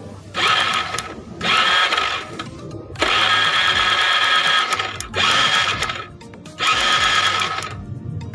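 Electric starter of a Honda Vario 110 scooter spinning its single-cylinder engine over with the spark plug out, in five whirring bursts of one to two seconds, the longest near the middle. The cranking is a spark test, checking the ignition on an engine that will not start.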